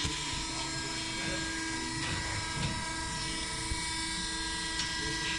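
Wood pallet block hot press line running, its motors giving a steady hum and whine, with a few faint ticks.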